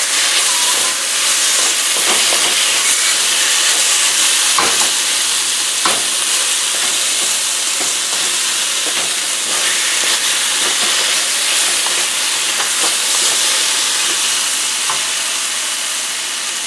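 Beef strips sizzling steadily in a very hot wok, stirred with a wooden spoon that scrapes and knocks against the pan a few times. The sizzle eases a little near the end.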